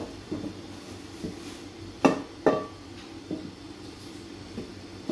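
Non-stick frying pan clanking against the gas stove as it is tilted to spread the oil. There are two sharp metallic knocks about half a second apart, each with a short ring, among a few lighter taps. A steady low hum runs underneath.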